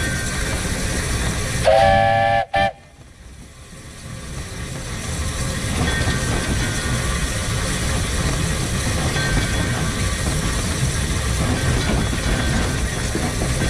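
Steam whistle of a 1915 Orenstein & Koppel steam tram locomotive: one loud blast of just under a second and a brief second toot, heard over the engine's steady running noise on the track. After the whistle the running noise drops sharply and builds back up over a few seconds.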